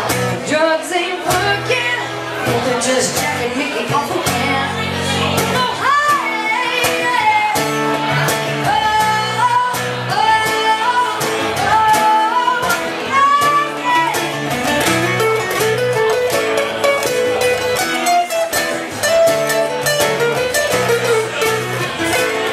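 Live acoustic duo: a woman singing into a handheld microphone over a strummed acoustic guitar, the strumming keeping a steady rhythm.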